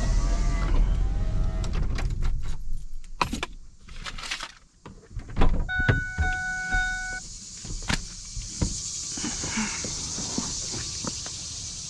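Vehicle cab sounds: a low engine rumble, then clicks and knocks. About six seconds in, an electronic warning chime sounds steadily for about a second and a half, of the kind a vehicle gives when the keys are left in the ignition. A steady hiss follows.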